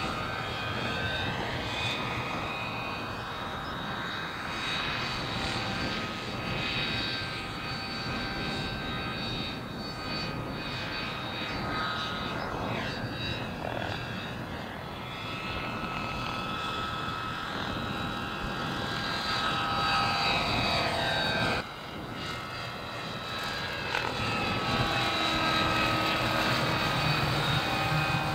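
Radio-controlled model helicopter flying overhead: a steady mechanical whine from its motor and rotors, several tones together, rising and falling in pitch as it passes back and forth. An abrupt cut about three-quarters of the way through brings a dip in loudness and a change in the sound.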